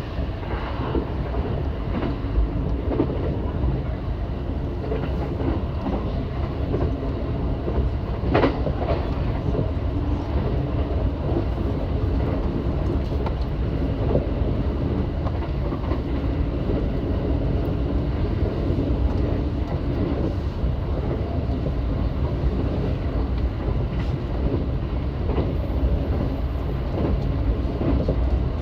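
Running noise of an E353 series electric train heard inside the passenger car: a steady low rumble with repeated small clicks from the wheels on the track, and one louder knock about eight seconds in.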